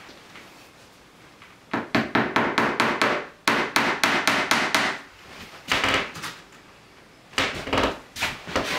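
Rapid hammer-like strikes of a hand fastening tool fixing felt insulation to a timber wall, coming in quick runs of several blows with short pauses between.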